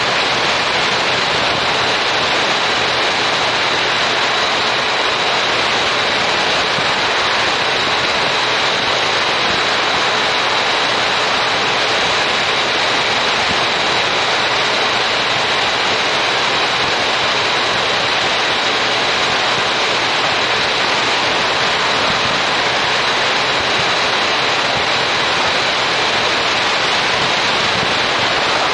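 Steady rushing wind noise over a motorcycle-mounted action camera while riding, an even hiss with a faint thin high tone and almost no engine note.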